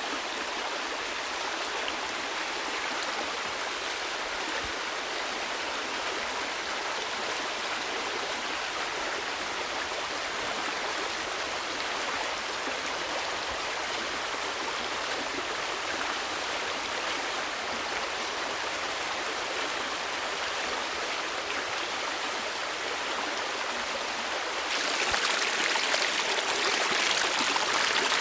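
Steady rush of flowing water. About 25 seconds in it turns suddenly louder and more hissing.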